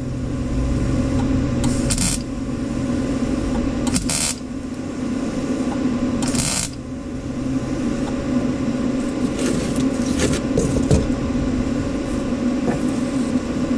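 Welder laying short tack welds on truck body sheet metal: several brief crackling bursts, each well under a second, a couple of seconds apart and coming closer together near the end, over a steady hum.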